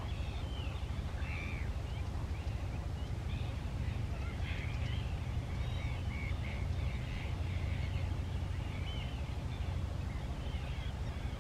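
Many short bird calls and chirps from several birds, scattered throughout, over a steady low rumble.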